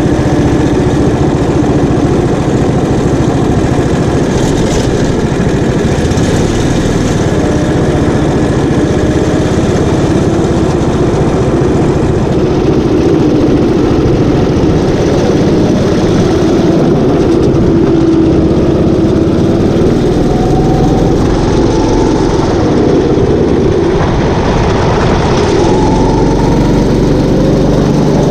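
Go-kart engine running on the track, its pitch rising and falling as the throttle is opened and lifted off through the corners.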